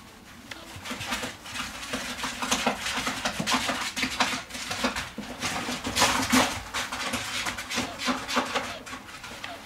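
Shredded paper bedding rustling and crackling in irregular bursts as a corgi puppy moves about in it, over a faint steady hum.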